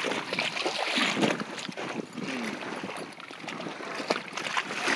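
Water running and splashing, a steady rushing noise broken by scattered small clicks.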